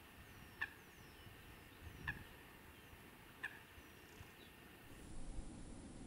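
Eurasian coot giving three short, sharp calls about a second and a half apart, with faint high, falling chirps of other birds behind.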